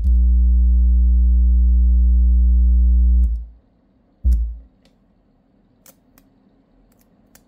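Steady, loud low-pitched hum of a sine-wave test tone driven by an audio amplifier through a microwave-oven transformer and subwoofer setup. It cuts off about three seconds in, comes back briefly for half a second a second later, then only a few faint clicks remain.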